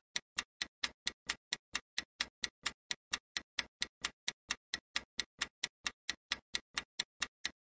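Quiz countdown timer sound effect: a steady clock-like ticking, about four and a half even ticks a second, marking the answer time running down.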